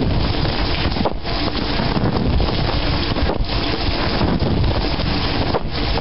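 Water spraying and splashing inside a running dishwasher during the wash cycle, heard from within the tub as a loud, dense rushing noise that dips briefly about every two seconds.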